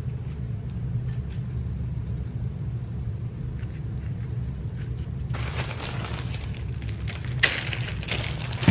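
A steady low rumble throughout. About five seconds in, a clear plastic zip-top bag starts crinkling and rustling as it is handled, with one sharp crackle, the loudest moment, about two seconds later.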